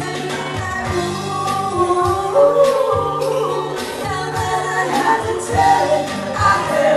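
Live band playing a pop song: a woman singing lead into a handheld microphone over acoustic-electric guitar, a steady bass line and a drum kit keeping a regular beat with cymbal hits.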